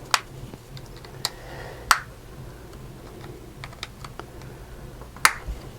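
Sharp plastic clicks and faint ticks as a small remote's snap-together plastic case is pried open at its slots, with four louder clicks spread irregularly among the fainter ones.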